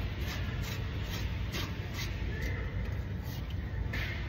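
Faint, scattered metallic clicks as a new NOx sensor is screwed by hand into the exhaust pipe, over a steady low hum of workshop background noise.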